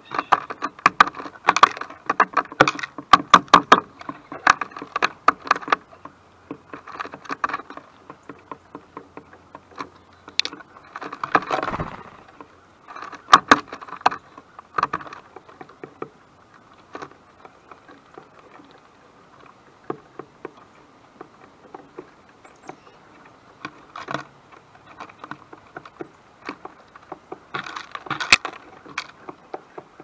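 Rapid, irregular taps and clicks, dense for the first few seconds, sparse through the middle and bunched again near the end, with a brief rustle about halfway through.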